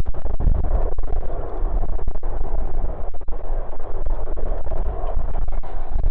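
Strong wind buffeting the phone's microphone: a loud, steady, distorted rumble, with the sound clipping and breaking up in short dropouts throughout.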